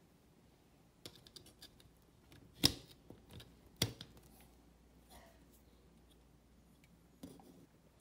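A small circuit board being unclipped and lifted off an Ableton Push 2's main board. A few light ticks of handling come first, then two sharp clicks about a second apart, and one more click near the end.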